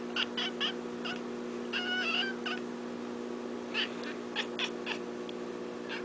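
Manx cat chirping and trilling at birds outside the window: a few quick chirps, a longer wavering call about two seconds in, then more short chirps near the end, over a steady low hum.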